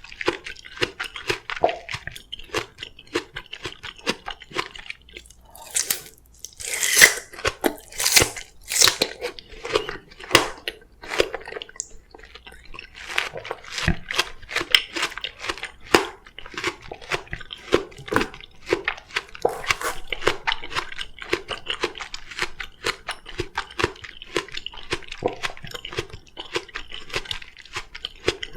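Close-miked chewing of crisp oriental melon (chamoe): irregular crunchy bites and wet chewing, with a run of louder crunches about six to nine seconds in.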